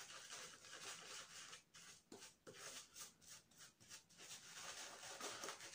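Faint rubbing and swishing of an Omega 40033 shaving brush working shaving-soap lather onto a stubbled face, in uneven repeated strokes.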